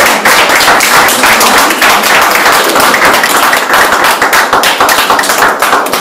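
An audience applauding: many hands clapping, loud and steady, tapering off near the end.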